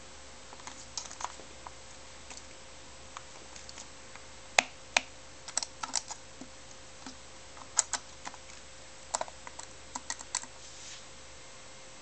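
Irregular clicks and clacks of hard plastic and metal parts knocking together as a vacuum cleaner's motor and mounting brackets are handled and fitted into the machine's head, with two sharper knocks about halfway through. The motor is not running.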